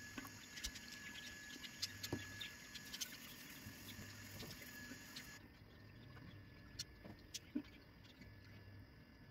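Faint handling noise: scattered light clicks and soft rubbing, as a small resin-and-wood piece is handled and polished with a cloth.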